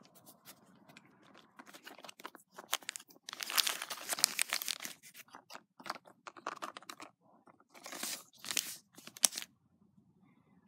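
Cardboard and plastic packaging being handled and torn open by hand: a run of crinkles and rustles, loudest in a stretch about three to five seconds in, with two short bursts and a sharp click near the end.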